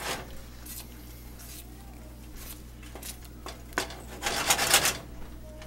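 Wooden spoon stirring thick cherry topping in a saucepan, scraping the pot: a few scattered scrapes, then a louder burst of quick scraping about four seconds in.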